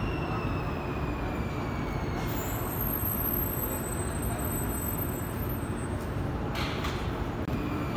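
Steady rumble and running noise of a moving vehicle, with a faint whine that falls slightly in pitch.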